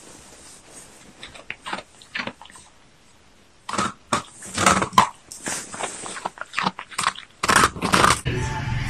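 A husky licking and chewing a scoop of ice cream: quick, irregular licking and chewing sounds, sparse at first and louder and busier in the second half. Music comes in just before the end.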